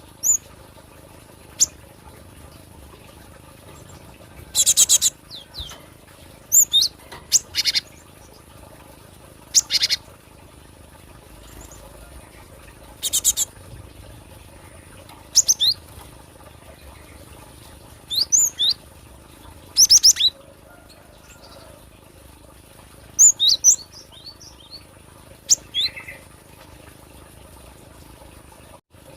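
Cinereous tit (gelatik batu) calling: short groups of high, quickly falling chirps mixed with harsh, buzzy notes, repeated every two to three seconds.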